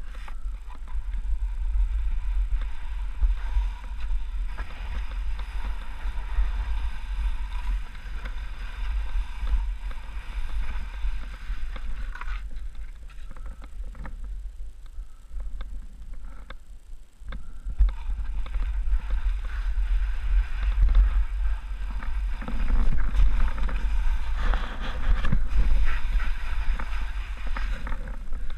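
Skis sliding and scraping over snow on a downhill run, with wind buffeting the camera microphone. The sliding goes quieter for a few seconds around the middle, then picks up louder again near the end.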